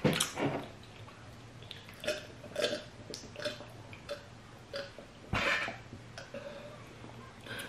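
Wet mouth noises of eating and drinking: open-mouthed smacking and chewing of fufu and soup, a string of short wet clicks about every half second, then gulps as water is swallowed from a mug in the second half.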